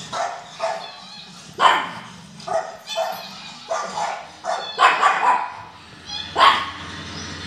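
Dog barking repeatedly at something outside the window: about a dozen short, sharp barks in irregular clusters.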